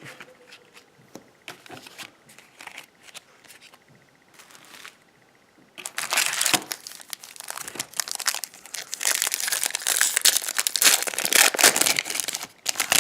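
A few light handling taps, then from about six seconds in, loud sustained crinkling and tearing of a foil trading-card pack wrapper being ripped open and crumpled.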